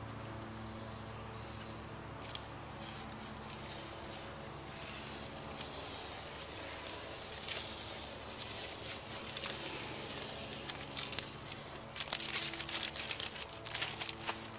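Nylon strap rustling and scraping as it is pulled across the boat's hull and bunched up by hand. Near the end come irregular scuffs and clicks of footsteps.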